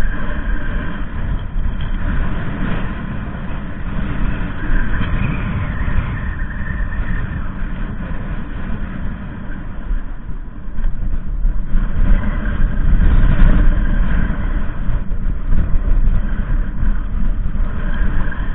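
Wind buffeting the microphone: a loud, uneven low rumble that swells and fades.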